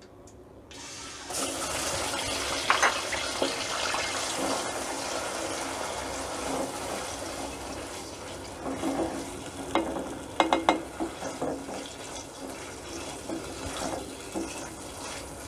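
Ground onion paste dropped into hot oil in an aluminium kadai, setting off a loud sizzle about a second in that slowly dies down, with a spoon scraping the pan as it is stirred now and then.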